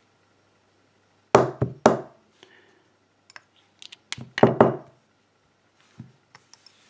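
Small metal lock parts and tools being handled on a hard work surface: two clusters of three sharp knocks, with light clinks and ticks between them.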